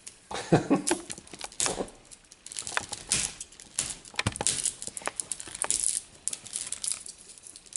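Hard plastic Play-Doh bunny stamper being pulled and pried at by hand as it resists opening: irregular plastic clicks, taps and short scrapes.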